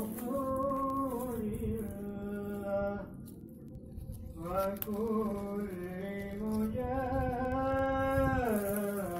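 Background music: a slow melody of long held notes that slide from one pitch to the next, sung by a voice, with a short break in the middle.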